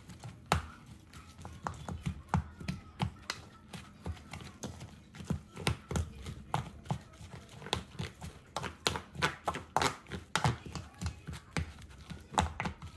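An irregular series of light taps and knocks, a few a second, growing more frequent and louder in the second half.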